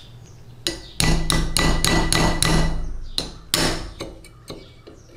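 Hammer striking a pin punch to drive a rusted pin out of an old airgun's trigger housing: a quick run of about eight metallic taps, then a few slower, spaced ones.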